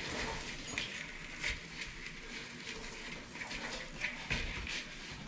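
Shredded wheat being crumbled and mashed by hand in a bowl: an irregular, faint crackle of small crunches.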